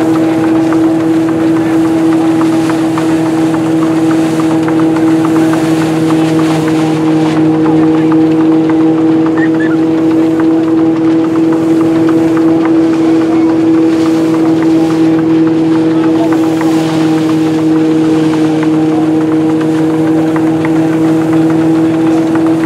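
Stationary threshing mill running at speed while sheaves are fed in: a loud, steady hum that holds one pitch, over a fine continuous rattle.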